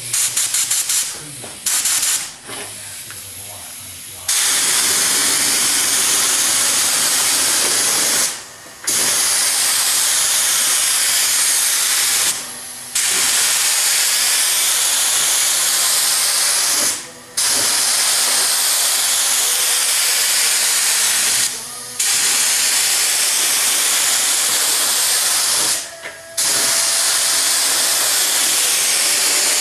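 Compressed-air paint spray gun hissing as it sprays base coat, in long passes of about four seconds each with short breaks as the trigger is let off between passes. There are a few short bursts at the start.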